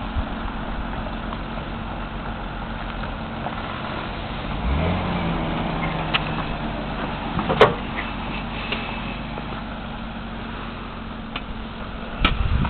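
2002 Ford Taurus SE's engine running through its dual exhaust shortly after a cold start. Its note rises about five seconds in as the car pulls forward, then holds steady. A sharp knock comes about halfway through, and a low thump near the end.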